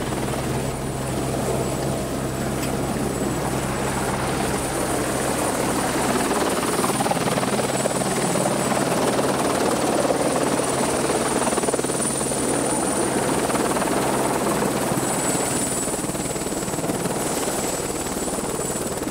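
Helicopter's engine and main rotor running, heard close, first from the cabin and then beside the open door. A steady high whine sits over the rotor noise, and a low hum drops away about six seconds in.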